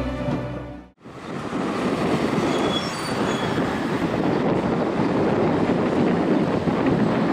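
Airbus A320-214's CFM56 jet engines on final approach: a steady rushing noise that comes in about a second in, after a piece of music fades out.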